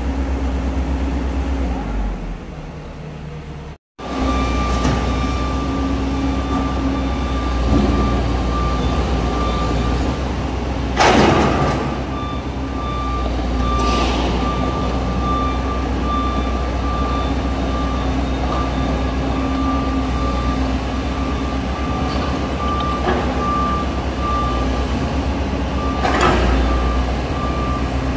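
Komatsu PC200 excavator's diesel engine running steadily. From about midway, an alarm beeps steadily on one high tone, typical of an excavator's travel alarm. A few short, loud bursts of noise stand out, the loudest about 11 seconds in.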